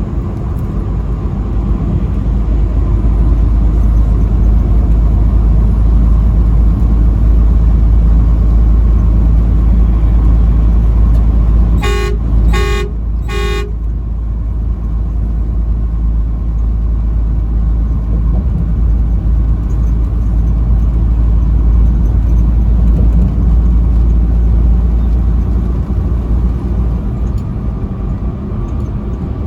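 Truck driving on the highway: a steady low rumble of engine and road noise, broken about twelve seconds in by three short horn blasts in quick succession, the last a little longer.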